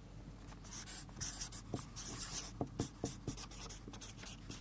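Felt-tip marker writing on flip chart paper: a series of short scratchy strokes with a few light taps of the tip against the pad, strongest about one to three seconds in.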